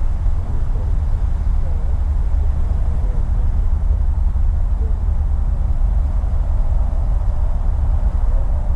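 Steady low rumble of a car heard from inside its cabin: engine and road noise as it rolls along at low speed.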